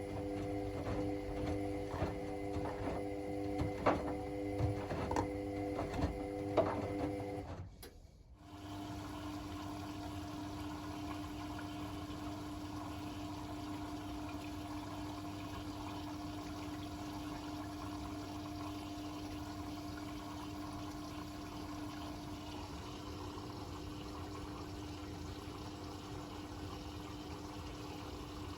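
Hotpoint WML540 washing machine running mid-cycle: a steady hum with regular clicks about twice a second, a brief drop-out about eight seconds in, then a steady hum with water moving inside.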